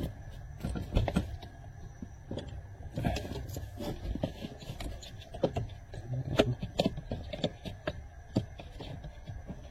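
Scattered light clicks and knocks of metal parts and hand tools being handled while steering rack parts are taken apart, irregular and unhurried.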